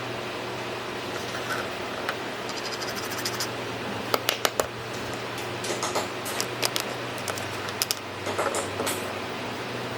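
Light clicks and clinks of the opened socket's small metal contact parts and plastic housing being handled, in a few short clusters from the middle to near the end, over a steady low hum.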